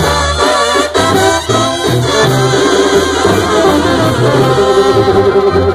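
Live Mexican banda playing an instrumental passage: trombones and other brass carry the melody over a pulsing sousaphone bass line.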